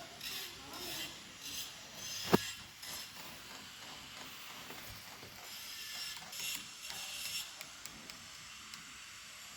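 Small mechanical clicking and rattling, with one sharp click about two and a half seconds in and a few light ticks near the end.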